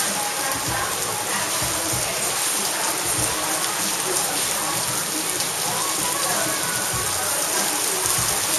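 Heavy tropical squall rain pouring down in a steady, dense hiss.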